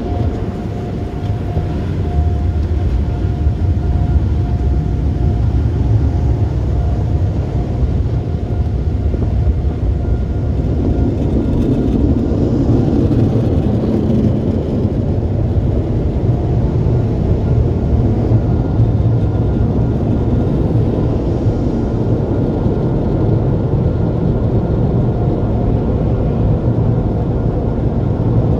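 Automatic tunnel car wash machinery running, heard from inside a pickup truck's closed cab: a steady heavy rumble with a faint steady whine over it, busier and rougher for a few seconds about twelve seconds in. A soft-cloth spinning brush is working in front of the truck near the end.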